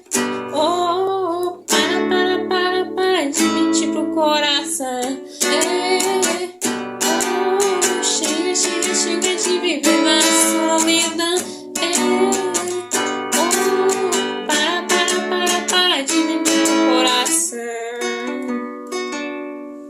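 Acoustic guitar (violão) strumming chords under a gliding melody line, in the closing instrumental of a gospel song, fading out over the last few seconds.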